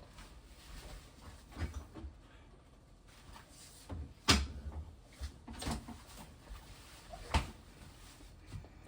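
A few separate knocks and clicks of kitchen items being handled, the loudest a sharp knock about four seconds in.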